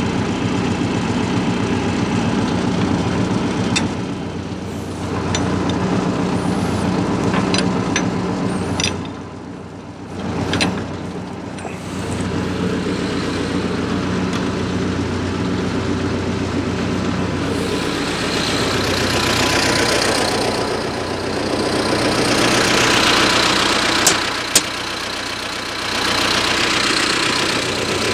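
T-40AM tractor's diesel engine idling steadily. About two-thirds of the way through, its low note fades under a broad hiss, and two sharp clicks come near the end.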